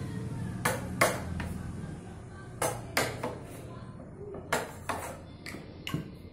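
Hammer striking the handle of a wood chisel, about nine sharp knocks mostly in quick pairs, as the chisel cleans out a hole chopped through a block of wood.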